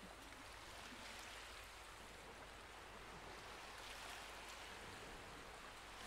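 Near silence: a faint steady hiss between lines of narration.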